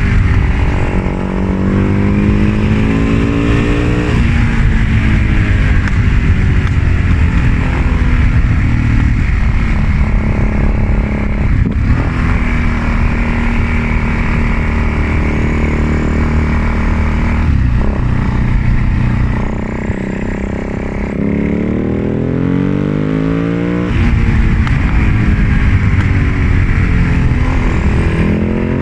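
Husaberg FS 650's single-cylinder four-stroke engine running hard, its revs rising in long climbs and falling back several times.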